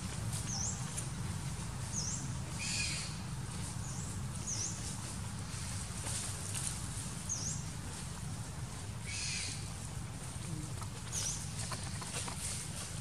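Short high bird chirps, each dipping down and back up, repeating every second or two over a steady low rumble, with two brief rustles of dry leaves about three and nine seconds in.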